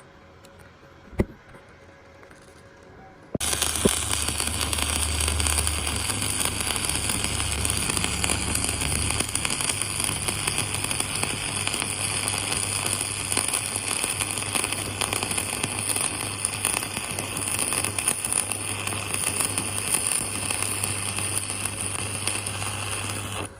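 Stick (shielded metal arc) welding: after a sharp tap about a second in, the arc strikes about three seconds in and crackles steadily for some twenty seconds over a low hum, then breaks off just at the end.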